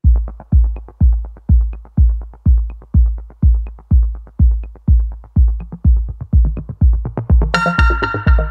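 Electronic background music: a steady kick-drum beat about two a second, with a synthesizer melody coming in about seven and a half seconds in.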